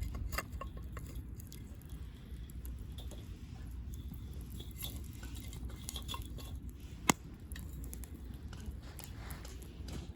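Wood campfire crackling: scattered small pops and snaps, with one sharp, louder pop about seven seconds in, over a low steady rumble.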